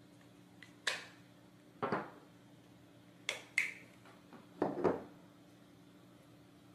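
Cylindrical batteries being pulled out of a spring-loaded plastic battery charger and handled: six short, sharp clicks and clacks, the last four in two quick pairs.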